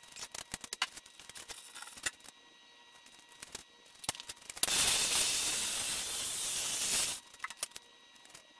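Scattered light clicks and taps, then a steady hiss of air or gas that starts about halfway through, lasts a couple of seconds and cuts off suddenly.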